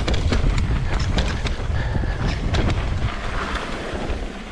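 Wind buffeting the camera microphone as a mountain bike rides a rough dirt and rock trail, with a steady low rumble and frequent small clicks and knocks from the bike rattling over the ground.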